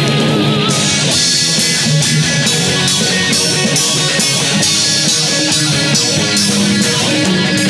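Rock band playing with electric guitars, bass and drum kit, the drums keeping a steady beat.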